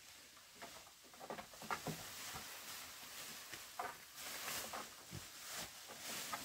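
Newborn piglets giving a few short, high squeaks amid scattered rustling and light knocks of handling in the pen.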